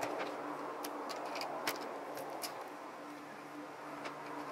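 Scattered light clicks and ticks of a small hand tool and fingers working at the metal frame and plastic of a laptop LCD panel as it is pried apart, the sharpest click about a second and three-quarters in, over a faint steady hum.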